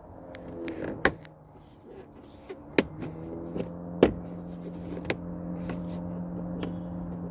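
Plastic car interior trim panel being pressed and knocked into place, a few sharp clicks and knocks as its tabs are seated.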